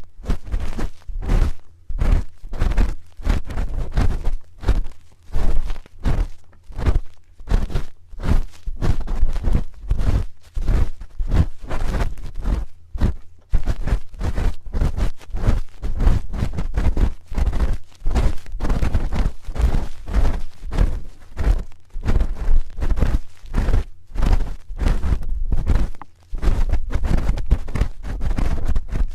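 Spoon scraping and tapping close against the microphone for ASMR ear cleaning. It is a dense, irregular run of scratchy strokes and dull thumps, several a second.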